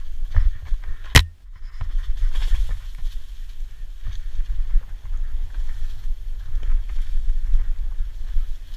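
Low, buffeting rumble of a mountain bike descending fast on a dirt forest trail, wind and trail vibration on the action camera's microphone, with one sharp knock about a second in.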